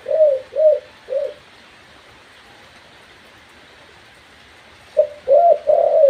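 A caged dove cooing: three short coos in quick succession, a pause of a few seconds, then a new cooing phrase starting near the end. The bird is a young hand-reared dove still practising its call.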